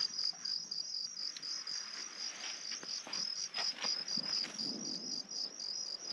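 Insects chirping in a steady, even high-pitched pulse, about five pulses a second, with faint scuffs and rustles mixed in.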